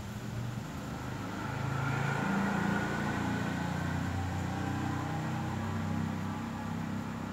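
A motor vehicle engine running: a low drone with a faint whine above it that swells and rises slightly about two seconds in, then holds steady.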